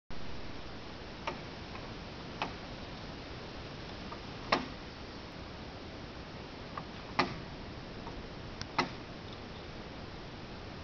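Steady background hiss with about half a dozen faint, sharp clicks scattered through it, the loudest about halfway; no rifle shot.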